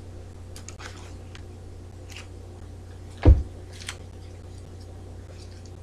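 Soft rustles and small clicks of Bible pages being leafed through to find a passage, over a steady low hum. There is one louder thump a little past the middle.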